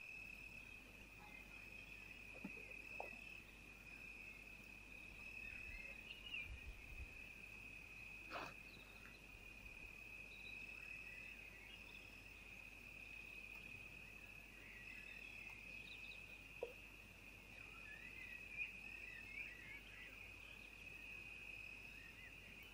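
A cricket's faint, steady high trill, unbroken throughout, with a soft click about eight seconds in.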